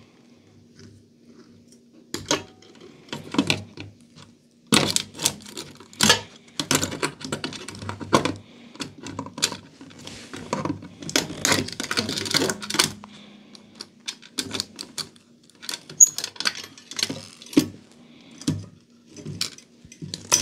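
Irregular metallic clicks, scrapes and clatter of pincers gripping and pulling at wire terminals and a transformer inside a sheet-metal battery charger case, as the transformer is taken out. The clatter is busiest in the middle and thins out toward the end.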